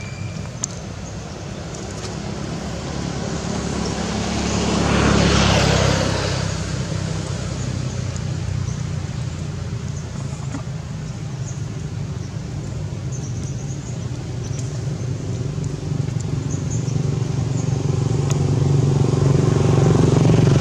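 A motor engine running with a steady low hum, swelling about five seconds in and growing louder again toward the end.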